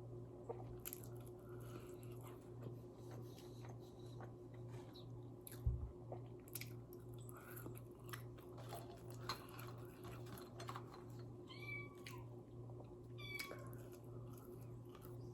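A kitten meows twice, two short high calls about two seconds apart near the end. Under it run chewing and small crunching clicks from someone eating, with a single thump about six seconds in, over a steady low hum.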